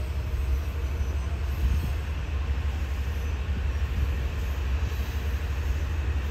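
Metro-North electric commuter train rolling slowly through the station tracks, a steady low rumble.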